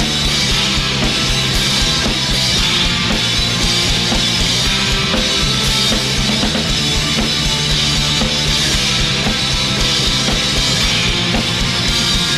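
Punk rock band playing live, loud and steady: distorted guitars, bass and drum kit in an instrumental stretch between sung choruses.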